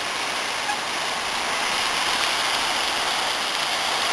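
Heavy rainstorm: a steady, dense hiss of rain falling, with water pouring down in heavy spouts.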